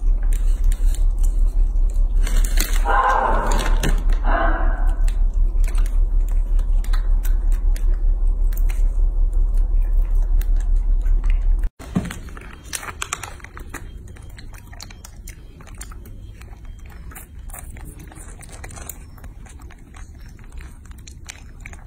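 A loud, low hum throbbing several times a second, with small clicks of monkeys chewing and a short voice about three seconds in; the hum stops abruptly about halfway. After that come soft clicks and crinkles of baby monkeys sucking and chewing at a plastic jelly pouch.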